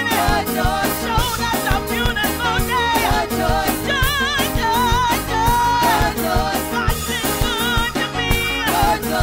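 Gospel choir singing with a lead singer on microphone, her voice sliding and wavering with a strong vibrato over the choir and instruments, to a steady beat.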